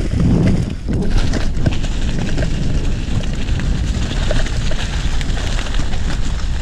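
Mountain bike riding along a dirt singletrack: tyres rolling and the bike rattling and clicking over bumps, with a steady rumble of wind on the microphone.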